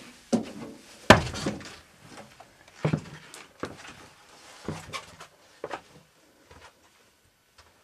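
Footsteps and knocks on the carpeted cabin floor of a Yakovlev Yak-40 airliner, a handful of separate thuds about a second apart, the loudest about a second in, dying away after about six seconds.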